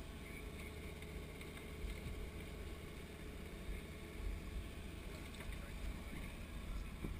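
Boat under way at sea: a steady low rumble with water washing past the hull and wind across the microphone.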